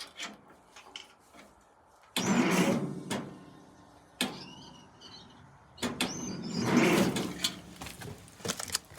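Ferguson TO-30 tractor's starter cranking the engine in two attempts of about two seconds each, the first starting about two seconds in and the second around six seconds, with a sharp click between; the engine turns but does not fire.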